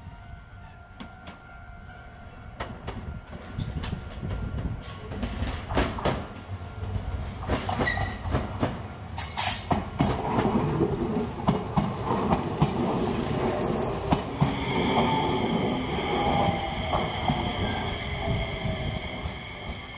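Enshu Railway electric train approaching and running past close by, growing louder from about three seconds in, its wheels clicking and knocking over the rail joints and points with a low rumble. Later a steady high tone and a gliding whine join the rumble.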